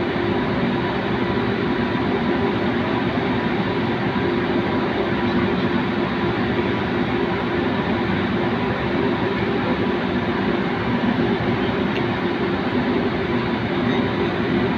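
Steady, unchanging drone of heavy machinery, with a constant low hum and a fainter higher hum running through it.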